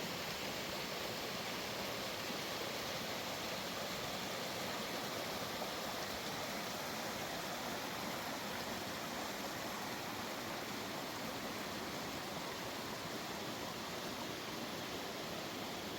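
Small creek running: a steady, unbroken rush of flowing water.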